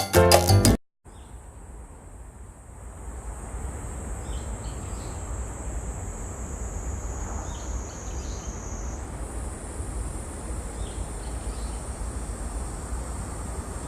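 Hairy cicada (Platypleura kaempferi) singing a continuous, loud, high-pitched buzz that steps up slightly in pitch about nine seconds in, over a low background rumble. Music plays for the first second before cutting off.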